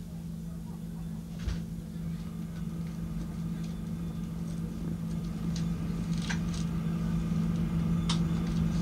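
Steady low drone of the train's idling diesel engine heard from inside the cab while standing, slowly getting louder, with a few sharp clicks about a second and a half in, around six seconds and near the end.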